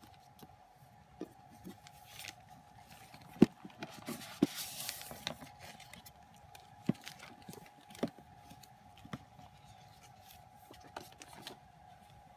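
Hands handling an album box set's cardboard packaging and discs: scattered clicks and taps as discs are lifted from their tray, the sharpest about three and a half seconds in, with a brief papery sliding rustle about four to five seconds in. A faint steady hum runs underneath.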